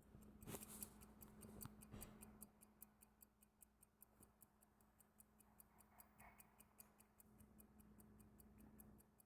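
Antique 1907 Elgin 18-size, 7-jewel pocket watch ticking faintly and evenly, about five ticks a second. A few louder clicks and rustle sound in the first two seconds or so.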